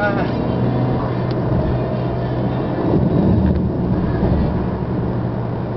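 A car driving at a steady speed, heard from inside the cabin: a steady low engine drone over tyre and road rumble.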